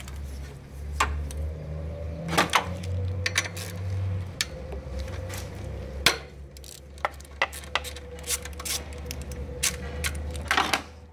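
A socket ratchet clicking and clinking as it loosens the nut on an alternator's output terminal, with a denser run of quick clicks near the middle, over a low steady hum.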